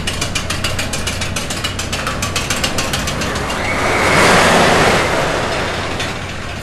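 Title-sequence sound effects: a rapid mechanical ratcheting click, several clicks a second, over a steady low hum. About four seconds in, a loud whoosh swells up and then fades.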